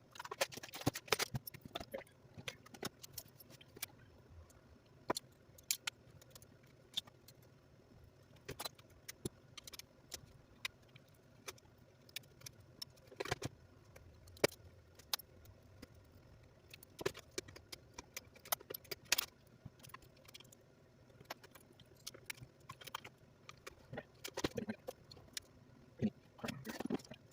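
Irregular clicks, taps and light metallic rattles of small tools and RC car parts being handled during a bench repair, busier in the first couple of seconds and again near the end.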